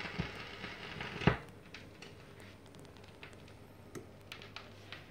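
Turntable stylus on the lead-in groove of a spinning 45 rpm vinyl single: a short stretch of hiss ending in a thump about a second in, then faint scattered ticks and crackle of the record's surface before the music starts.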